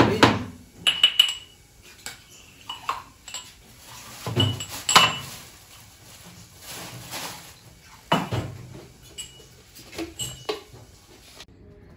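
Steel kitchen utensils clinking and knocking: a spoon striking a small steel cup and containers being picked up and set down. The sound comes as a series of separate clinks, some ringing briefly.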